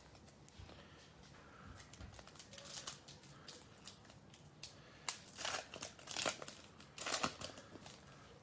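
Foil wrapper of a Prizm Draft Picks basketball card pack being torn open and crinkled by hand: faint scattered crackles, then a few louder crinkling bursts in the second half.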